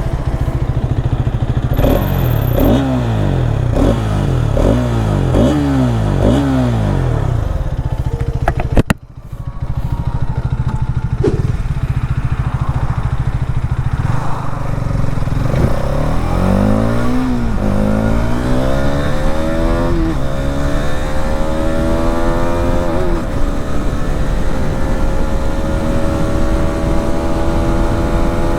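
Hero Xtreme 250R's single-cylinder engine: about seven quick throttle blips in a row, a brief drop-out near the end of the first third, then the bike accelerates through the gears, pitch climbing and falling back at each upshift about three times, before settling to a steady cruise.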